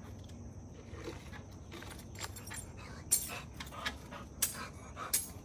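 A bunch of keys jingling and clinking: a few sharp metallic rattles, the loudest three in the second half.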